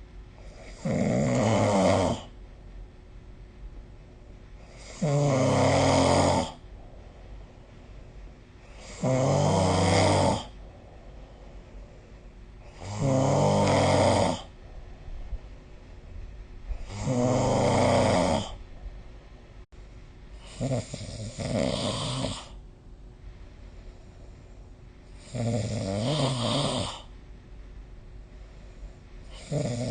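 A person snoring in sleep, one snore about every four seconds, each lasting about a second and a half. The last few snores are quieter than the earlier ones.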